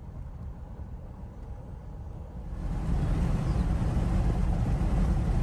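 Road noise inside a moving vehicle: a steady low rumble that turns louder and fuller about two and a half seconds in.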